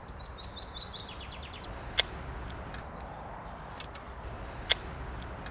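A small songbird singing a quick trill of chirps that falls in pitch, over a steady low outdoor background. A few sharp clicks follow, about two seconds in and again near the end.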